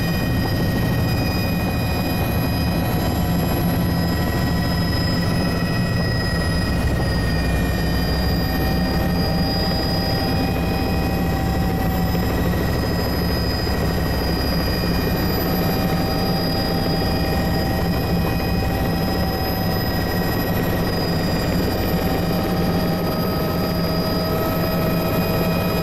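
Helicopter engine and rotor running steadily in flight, heard from inside the cockpit: a dense, even low rumble with thin steady whining tones above it.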